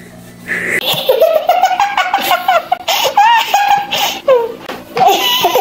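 High-pitched giggling laughter, in quick pulses, starting about a second in and running on.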